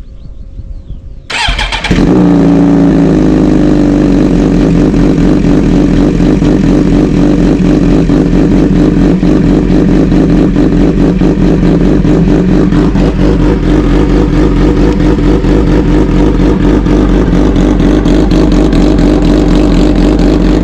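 2009 Suzuki GSX-R750 inline-four engine started on a cold start, catching about two seconds in and then idling steadily, loud through a slip-on end can with its baffle taken out.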